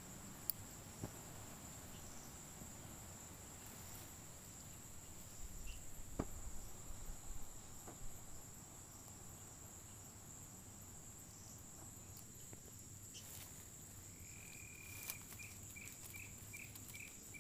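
Night insects, crickets, keeping up a steady high-pitched drone. About three-quarters of the way through, a second, lower call begins: one held note, then a run of short chirps about three a second.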